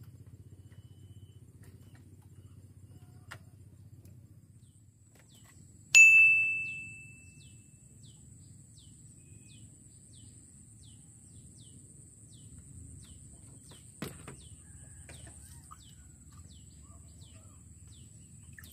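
A single loud metallic ding about six seconds in that rings out for a second or so, followed by faint short chirps repeating about every half second and a brief knock later on.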